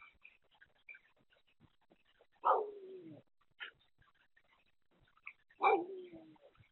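Two animal calls about three seconds apart, each starting sharply and sliding down in pitch as it trails off.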